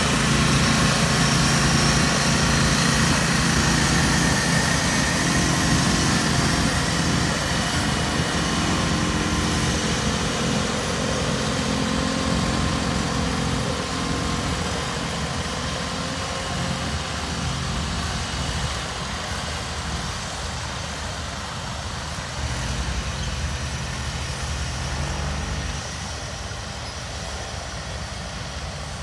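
Several garden tractors' engines running under load as they pull moldboard plows, a steady working drone loudest at first and fading as the tractors move off, dropping again near the end.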